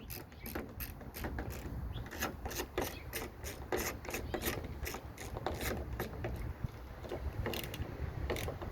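Ratchet clicking steadily, about three clicks a second, as it turns down the T30 Torx screw that holds a door handle in place.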